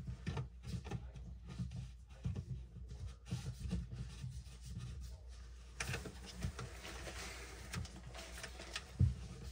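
A gloved hand turns a plastic pop-up drain body to thread it into the sink drain, giving quiet irregular rubbing and light clicks. A scratchier rasp comes from about six seconds in, and there is a sharper knock near the end.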